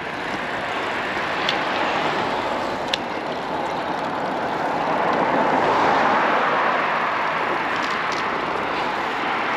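Steady rushing wind and road noise from riding a bicycle, swelling slightly around the middle.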